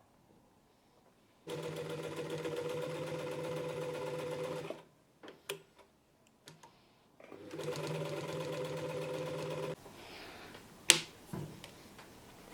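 Singer 215G portable sewing machine stitching through two layers of leather, running steadily in two spells of about three seconds each. There are a few clicks in the pause between the spells and a sharp loud click near the end.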